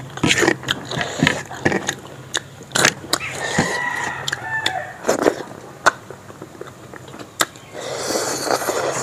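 A rooster crows once in the background, one drawn-out crow about three seconds in. Close by are short wet clicks and smacks of rice and chicken gravy being mixed by hand on a plate and eaten.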